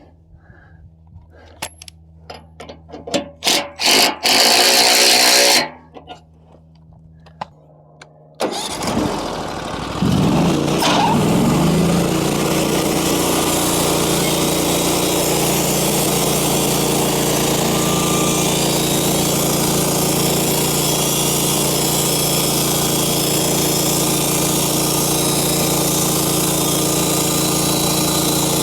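A few knocks and a loud rushing noise lasting about a second and a half, then, about eight seconds in, a sawmill engine starts, rises in pitch and settles into a steady run.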